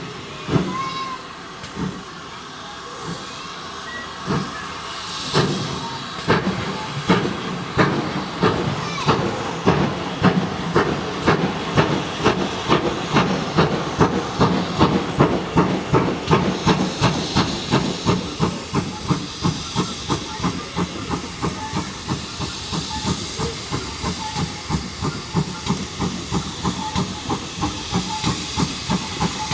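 Steam locomotive pulling away: exhaust beats start slow and widely spaced, quicken steadily over the first fifteen seconds or so, then settle into an even beat of about three a second, with steam hissing throughout.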